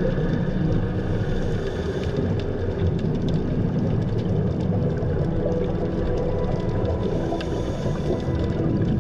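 Underwater ambience picked up by a camera housing: a steady low hum with the gurgling and crackle of scuba divers' exhaled regulator bubbles, the bubble hiss a little stronger near the end.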